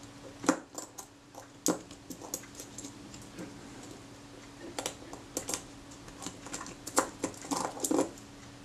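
Irregular small metallic clicks and taps of a fine screwdriver and pick against the tiny steel parts of a camera leaf shutter being taken apart by hand, with a run of quicker clicks near the end. A faint steady hum sits underneath.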